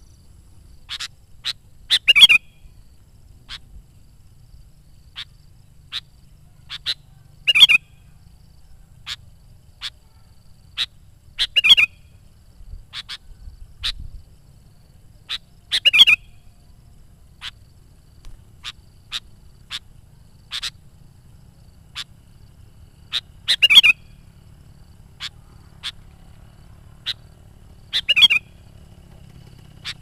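Sooty-headed bulbul singing in a loud, full-voiced way: short bright whistled notes come scattered through, with a louder, fuller phrase about every four to five seconds.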